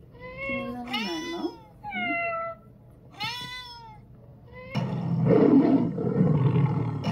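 A recorded domestic cat meowing, four separate meows in the first three and a half seconds, followed a little under five seconds in by a recorded lion roaring, louder than the meows.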